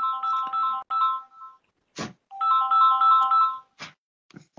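Mobile phone ringtone: a short electronic melody of quick alternating beeping notes, played twice with a brief gap, with a sharp click between the two runs.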